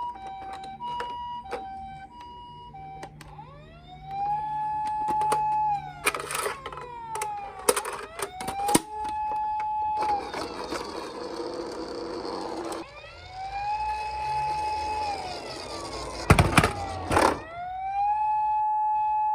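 Toy ambulance minicars' electronic sirens: a two-tone hi-lo "pee-po" siren for the first few seconds, then a wailing siren that rises, holds and falls, repeated several times. Sharp plastic clacks come in two clusters, and there is a rushing hiss for a few seconds in the middle.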